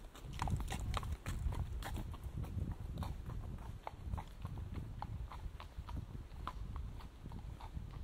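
Footsteps at a steady walking pace on a wet, leaf-covered forest path, with a low rumble underneath.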